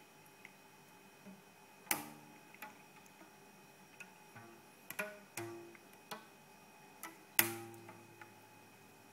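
A rubber band stretched between two drawer knobs is plucked by a cat's paw, giving a few low twangs, each ringing briefly, with softer clicks between them. The loudest twang comes near the end.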